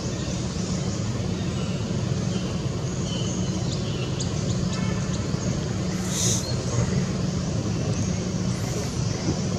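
Steady low hum of road traffic, with faint high chirps scattered over it.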